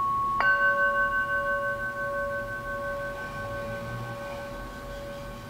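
A singing bowl struck once with a mallet about half a second in, ringing on with a slow wavering pulse as it fades. A higher bowl tone from an earlier strike is still ringing underneath.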